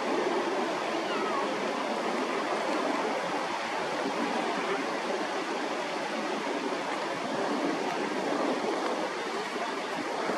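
Steady rushing of a shallow river running over a stony bed, with a faint bird chirp about a second in.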